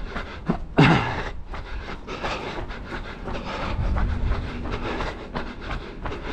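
A runner's footfalls and breathing, picked up by the camera he wears, with a steady low rumble underneath. A short loud burst comes about a second in.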